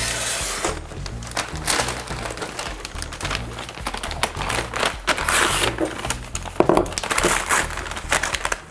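A paper delivery bag being opened and crumpled while takeout containers are taken out of it, a run of rustles and crinkles, over background music with a steady bass line.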